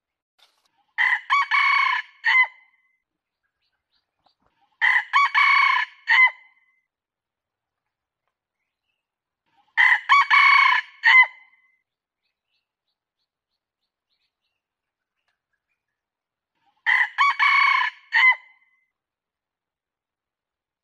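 Red junglefowl rooster crowing four times, several seconds apart. Each crow is short and clipped: quick opening notes, a held middle and a brief final note.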